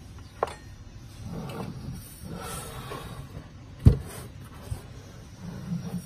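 Handling noise from a metal LED X-ray film viewer being moved about on a table: a sharp click about half a second in, some rubbing and sliding, then a heavy knock just before the four-second mark and a lighter click soon after.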